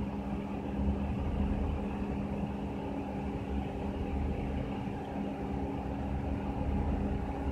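A steady mechanical hum with a constant pitch and a low rumble beneath it.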